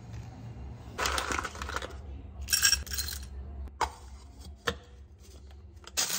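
Kitchen handling sounds: a brief rustle, then a few bright metallic clinks, the loudest part, and two sharp clicks as a plate and a metal canister lid are handled.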